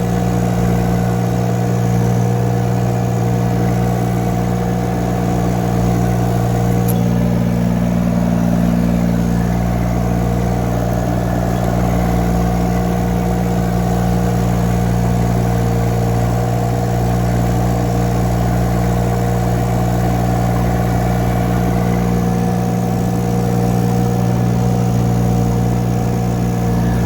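A 2-ton mini excavator's engine running at a steady speed while the machine drives on its tracks, with no change in pitch.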